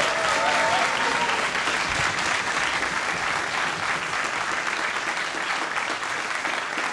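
Audience applauding steadily, easing slightly toward the end, with a voice briefly rising over it in the first second.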